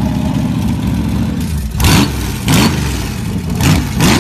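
Boss Hoss motorcycle's V8 engine idling with a steady low rumble, then blipped four times on the throttle from about two seconds in, each rev rising and falling quickly back to idle.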